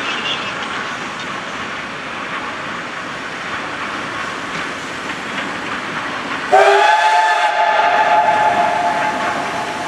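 Steam locomotive hauling a passenger train approaches with steady running noise. About six and a half seconds in, its steam whistle sounds suddenly: a loud chord of several tones held for over three seconds.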